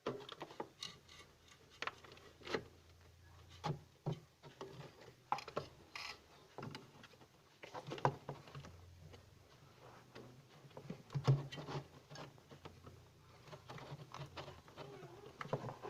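Hands and tools working on refrigerator parts: irregular taps, clicks and knocks with some rubbing, over a faint low hum.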